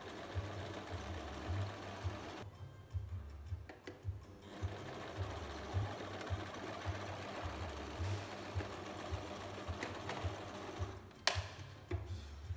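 Singer electric domestic sewing machine stitching a side seam, running in two spells with a stop of about two seconds a couple of seconds in. A single sharp click comes near the end.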